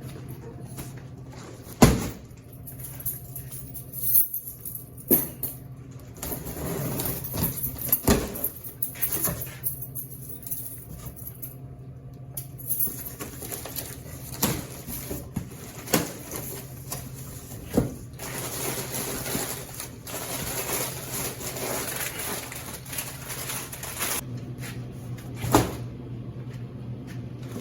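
Scattered knocks and clicks of packaged items being handled and set into a vending machine, a few seconds apart, over a steady low hum.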